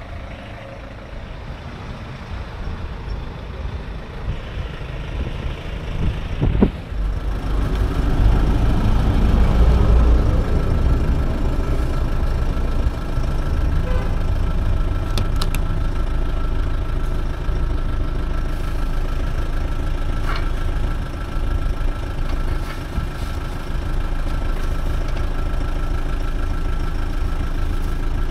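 A motor vehicle running, a steady low engine and road rumble. About seven seconds in there is a sharp click, after which the rumble gets louder and then holds steady.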